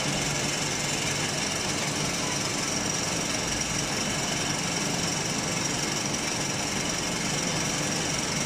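Hydraulic metal chips baler running steadily: a continuous mechanical noise with a constant high whine and a low hum.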